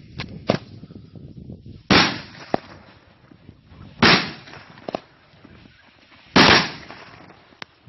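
Homemade Thai four-shot salute cake firework going off: three loud bangs about two seconds apart, with softer sharp pops between them.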